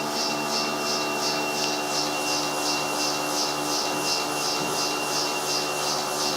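Portable electric bucket milker running: a steady motor hum with a regular hissing pulse about twice a second, the pulsator working the teat cups.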